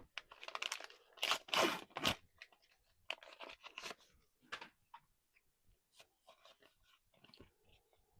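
A trading-card booster pack being torn open, its wrapper tearing and crinkling loudly for about the first two seconds, then fainter crinkling and card-handling noises.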